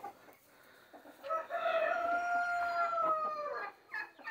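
Rooster crowing once, a long held call starting about a second in, followed by a few short calls near the end.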